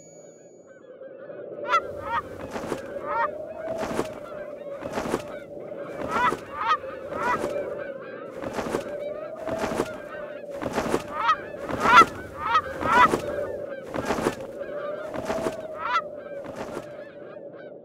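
Goose honking in short runs of calls, over a regular flapping stroke about once a second and a steady low hum.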